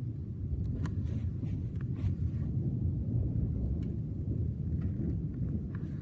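Low, rolling rumble of distant thunder that swells a little about a second in, with a few faint clicks over it.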